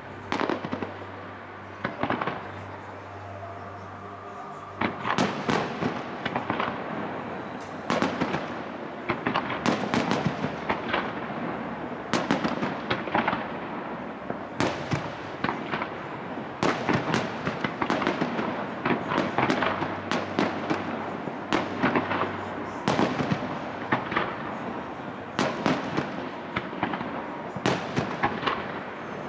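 Aerial fireworks display: shells bursting in a long run of sharp bangs over a steady rumble. The bangs come thicker and overlap from about five seconds in, as in a finale barrage.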